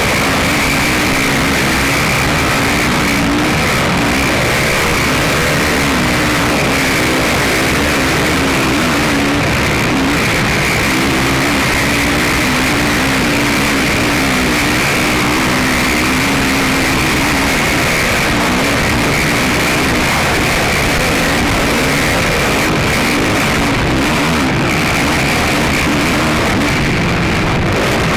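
Racing ATV engine running hard on board, its pitch rising and falling as the throttle changes, over dense wind and riding noise, with rock music mixed in.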